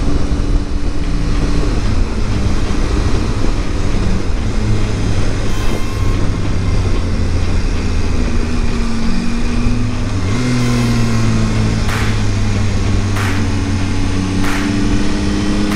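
Motorcycle engine running steadily at road speed under wind noise on the microphone. Its pitch steps up about ten seconds in and climbs slowly near the end as the bike gathers speed. A few short ticks come about a second apart near the end.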